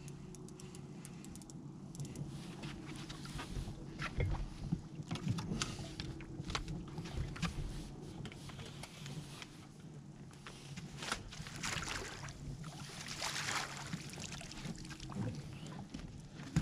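A walleye being netted and brought into an aluminum boat: splashing at the surface, with knocks and rattles of the net and gear against the hull, over a steady low hum.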